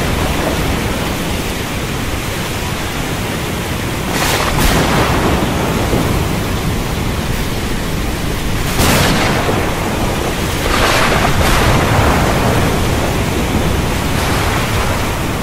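Thunderstorm over the sea: a steady, loud rush of rain, wind and sea, broken by several sudden louder swells a few seconds apart.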